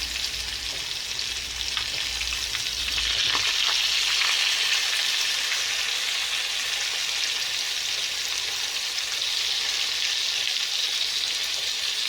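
Marinated crab pieces deep-frying in hot oil in a small pan: a steady sizzle throughout, with a few faint clicks in the first three seconds.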